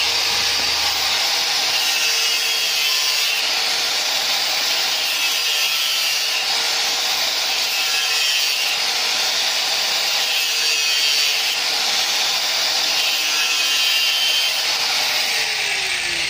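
DeWalt angle grinder cutting through orange PVC pipe: a steady motor whine over the rasp of the disc in the plastic as the pipe end is trimmed square. Near the end the motor winds down, its pitch falling.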